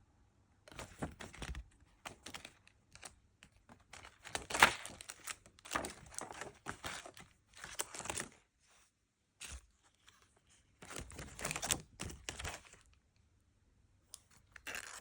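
Packaging being handled and opened: crinkling and tearing in irregular bursts, separated by short pauses.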